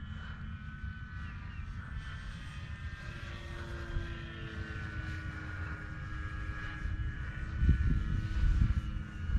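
Dynam C-188 Air Tractor electric RC model plane flying overhead: the steady whine of its brushless motor and propeller, wavering slightly in pitch. Under it is a low rumbling noise that gets loudest near the end.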